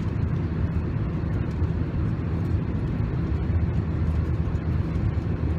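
Steady low rumble of an airliner cabin: the engine and air noise heard from a passenger seat, with no change in pitch or level.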